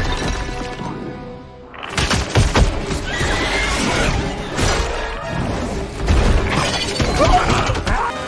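Loud background music mixed with several sudden crashing, shattering hits.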